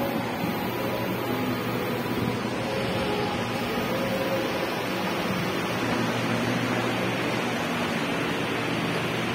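Steady background noise of an underground metro station platform: an even hiss with a low hum underneath.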